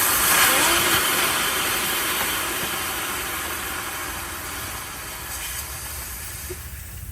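Compressed air hissing out of an air-suspension hard line as its quick-connect fitting is released, fading slowly as the line loses pressure and cutting off suddenly near the end.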